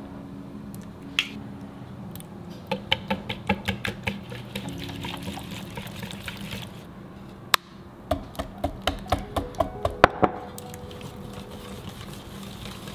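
Wire whisk beating a runny batter in a mixing bowl, the wires clicking against the bowl's sides in two quick runs of about five strokes a second, with a couple of single sharp knocks between.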